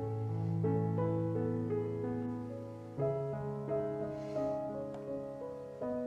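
Background piano music: a slow melody of single notes over held bass notes, the bass shifting about three seconds in.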